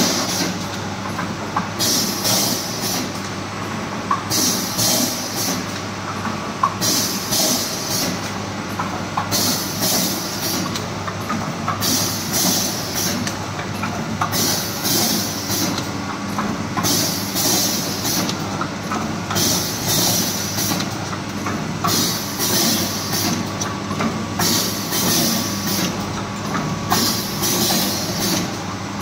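Automatic vertical form-fill-seal pouch packing machine running: a steady mechanical hum with a high hiss that comes in short bursts about every two and a half seconds, in step with its filling and sealing cycle.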